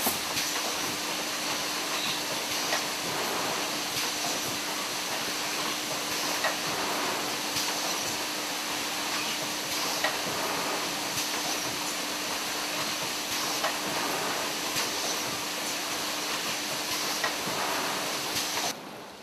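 Automatic syringe packaging machine running: a steady hiss over a low steady hum, with a sharp click about every three and a half seconds. Near the end the hum stops and the sound drops quieter.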